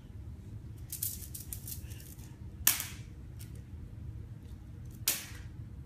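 A small toy clacking against a hard tiled floor: light rattling clicks, then two sharp clacks about two and a half seconds apart.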